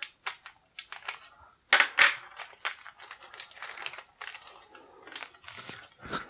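Thin clear plastic bag crinkling and crackling as its tape is slit with a hobby knife and the cardstock file cards are slid out. A run of sharp crackles, louder about two seconds in, with denser rustling from about three seconds on.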